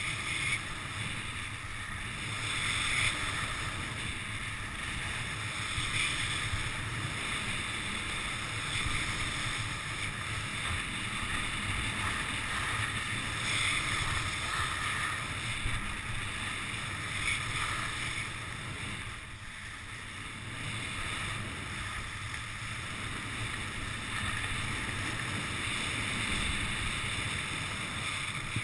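Skis sliding and scraping over groomed spring snow, the hiss swelling every few seconds with each turn, over a steady rush of wind on the microphone.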